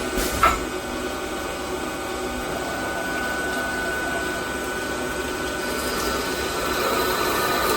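Microcut Challenger CNC lathe running through its program, a steady machine whine with several held tones, a sharp click about half a second in, growing louder and brighter about six seconds in.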